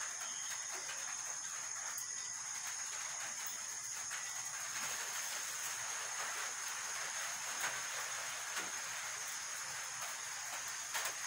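Steady high-pitched hiss, with a few faint clicks in the second half.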